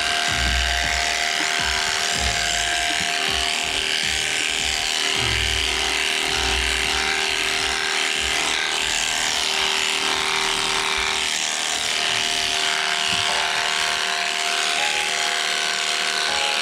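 Handheld electric sheep shears running with a steady hum, cutting through a sheep's long fleece.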